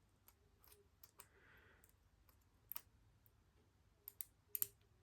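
Faint metal clicks of a lock pick probing and lifting the pin stacks inside a Squire LN4 padlock during single-pin picking. The clicks are scattered, with a sharper pair near the middle and a quick cluster of clicks about four seconds in.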